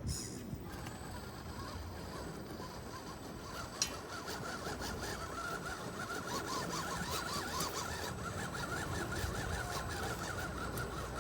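Electric motor and gear whine of a 1/10-scale RC crawler driving, wavering in pitch as the throttle changes, starting about four seconds in, with scattered small clicks.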